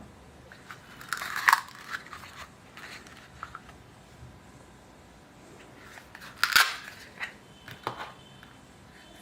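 Small plastic toy kitchen pieces and their packaging being handled: crinkling and light plastic clicks, with two louder rustling bursts, about a second and a half in and again about six and a half seconds in.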